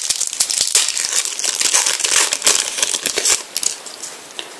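Foil wrapper of a trading-card packet crinkling as it is handled, a dense run of crackles that dies away about three and a half seconds in, with one small click near the end.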